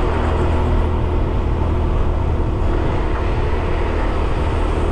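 Motorbike engine running steadily as it is ridden along at an even speed, together with road and rushing-air noise.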